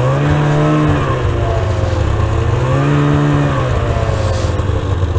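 Snowmobile engine running under throttle. Its pitch climbs near the start, then falls and rises again twice as the throttle is eased and reopened.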